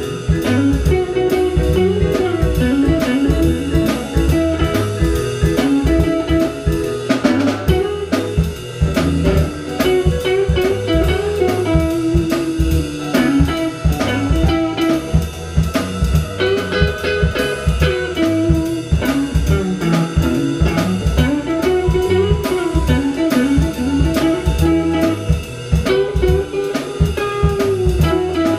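Background music: guitar over a drum kit keeping a steady beat.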